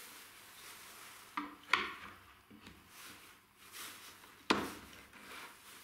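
A plywood mitre gauge being set down and shifted on a table saw's sliding table, its guide bar in an aluminium rail: a few sharp knocks and clacks, two close together and a stronger one later, with light rubbing between.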